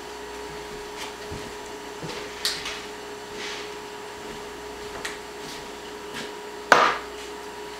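A steady faint hum, with a few short knocks and rustles as objects are handled. The loudest is a sharp knock a little before the end.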